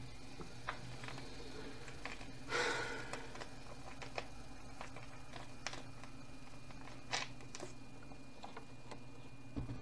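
Quiet room with a steady electrical hum and a faint high whine, broken by a few scattered small clicks. A short breathy laugh comes about two and a half seconds in.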